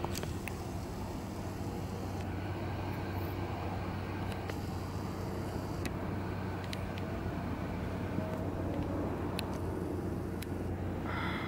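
Steady low hum and rumble of background noise, with a few faint high ticks scattered through it.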